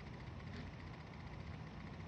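Faint, steady background rumble and hiss with no distinct events: room tone.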